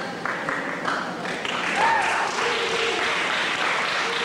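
Audience applauding, with people's voices mixed in; the clapping swells about a second and a half in.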